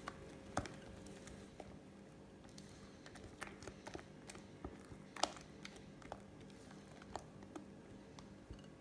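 Silicone spatula mixing thick avocado cream cheese batter in a glass bowl: faint scraping, with irregular light taps and clicks of the spatula against the glass. A low steady hum runs behind it.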